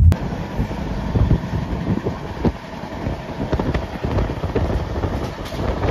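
Train noise: a steady rumble and hiss with many small, irregular clicks and rattles.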